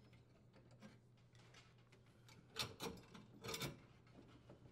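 Faint clicks and taps of a dishwasher power cord's strain relief and wires being handled and pulled free of the sheet-metal junction box, a few short knocks bunched about two and a half to three and a half seconds in.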